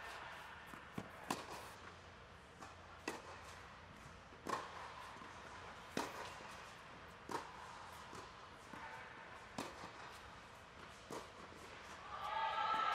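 Tennis balls being struck by a racket and bouncing on a hard indoor court: sharp pops about every one to one and a half seconds, echoing under a large air-supported dome. Near the end a louder pitched sound comes in.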